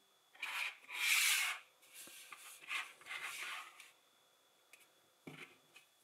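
Hands handling LEGO pieces: a few rubbing, rustling scrapes through the first four seconds, the loudest about a second in, then a single sharp click a little after five seconds.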